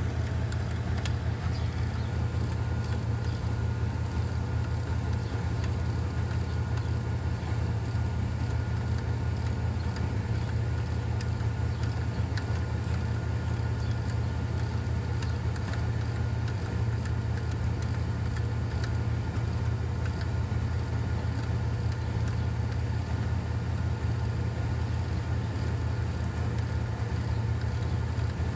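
A steady low hum, like an engine idling, with faint clicks now and then.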